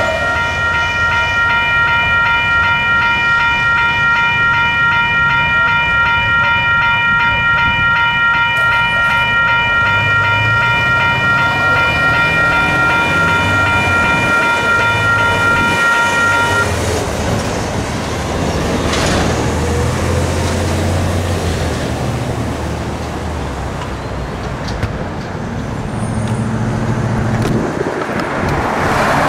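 Two WCH electronic grade-crossing bells ringing steadily while the gates rise after the train has cleared, cutting off suddenly about 17 seconds in when the crossing deactivates. Afterwards cars and a truck drive through the crossing.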